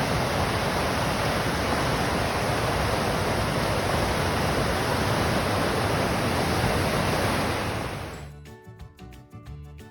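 Steady rushing of river rapids and a waterfall. About eight seconds in it fades out and soft background music with held notes takes over.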